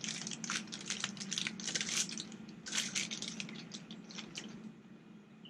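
Rustling and light clicking as the parts and plastic case of a torque wrench kit are handled, irregular and crackly, dying away near the end. A faint steady hum runs underneath.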